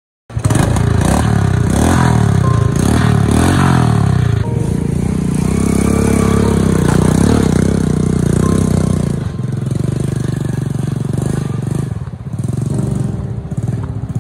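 A small engine running and revving up and down repeatedly, then in slower swells, easing off near the end.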